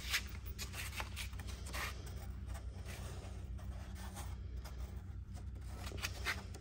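Old, crumbling covering being peeled and picked off a car's quarter window trim panel by hand: irregular dry scratching, rustling and small tearing sounds, over a steady low hum. The skin is falling apart and comes away with almost no pressure.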